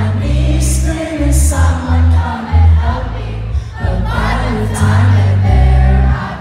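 A live pop band playing loud, with heavy bass notes, drums and singing, and many voices from the crowd singing along.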